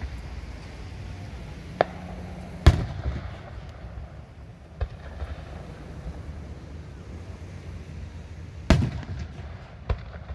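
Fireworks bursting overhead: about five sharp bangs spread out at uneven gaps, the loudest about a quarter of the way in. A big one near the end trails off in a short rumble.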